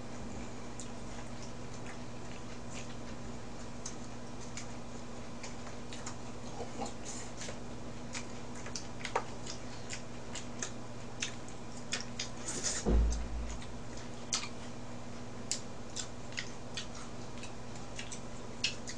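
Eating sounds: scattered light clicks and taps of chopsticks on dishes and mouth sounds as raw mullet sashimi is picked up and eaten, more frequent after the first few seconds, over a steady low hum. One louder low thump about two-thirds of the way through.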